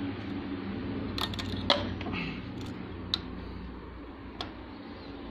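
Metal parts of an overlock sewing machine clicking as the presser foot and nearby parts are handled by hand: about half a dozen sharp clicks, the loudest a little under two seconds in, over a steady low hum.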